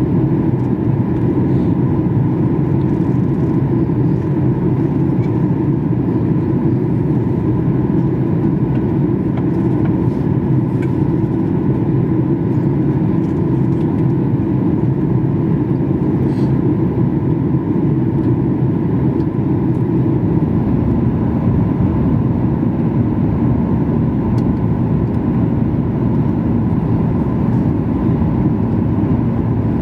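Steady passenger-cabin noise inside a Boeing 737 MAX 8 on its approach to landing: a deep rush of engines and airflow with a faint steady whine above it. A low hum joins about two-thirds of the way through.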